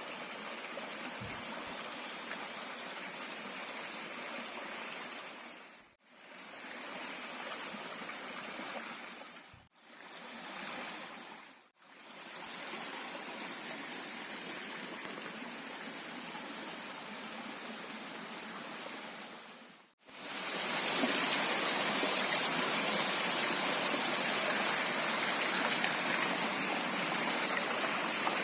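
Steady rush of water flowing in a jungle stream. It fades out and back in four times, and is louder and brighter after the last break.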